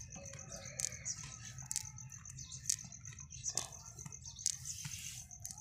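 Quiet background: a steady, high-pitched pulsing trill with scattered soft clicks and rustles.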